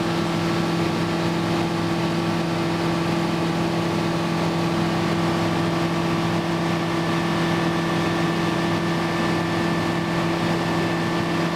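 Aircraft engine droning at a steady, unchanging pitch, a constant low hum over an even rushing noise.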